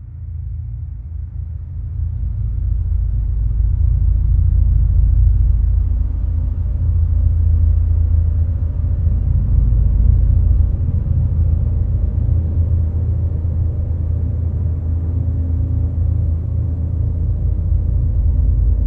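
A loud, steady low rumble that builds over the first few seconds and then holds.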